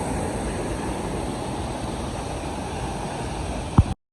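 Steady roar of a waterfall plunging into its pool. A short thump comes near the end, and then the sound cuts off abruptly.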